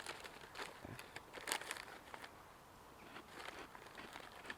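Faint crinkling and rustling of a plastic snack packet, in scattered short bursts that are busiest in the first two seconds.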